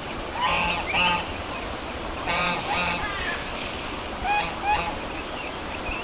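Duck quacking in three pairs of short calls, about two seconds apart, over a steady background hiss.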